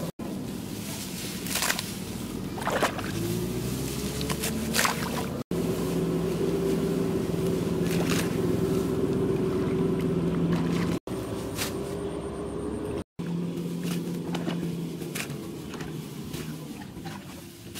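A motor drones steadily, its pitch swinging up briefly a couple of times, with scattered sharp snaps and rustles as rice stalks are cut and pulled by hand.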